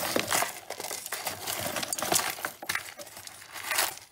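Costume jewelry being handled and sorted: metal and bead pieces clinking lightly against each other, with rustling. The sound is a run of quick, irregular clicks.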